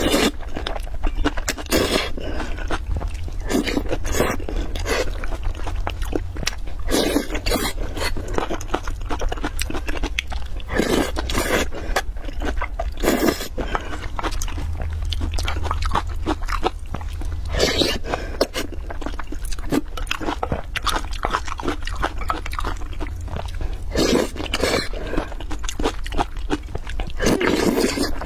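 Close-miked eating sounds: noodles in broth slurped and chewed with wet smacking mouth noises, in loud bursts every second or two.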